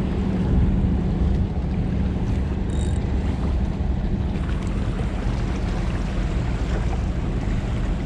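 Wind buffeting the camera microphone in a steady low rumble, over waves washing against the jetty rocks.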